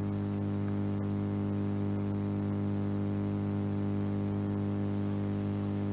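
Steady low electrical hum with a buzz of overtones, unchanging throughout, over faint hiss.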